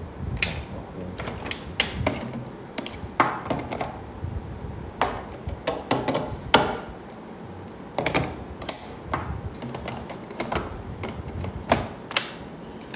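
Irregular clicks and knocks of hard plastic parts: a Ninja Creami's outer bowl and pint tub being taken off the machine, handled and twisted back into place. This happens while the machine fails to detect the bowl and will not start.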